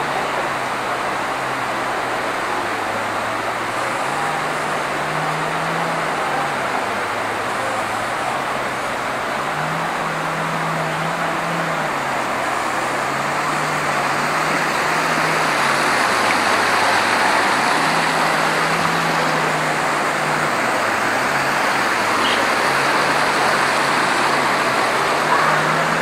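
Steady rushing background noise with no distinct events, a little louder in the second half. A low hum underneath steps back and forth between two pitches every few seconds.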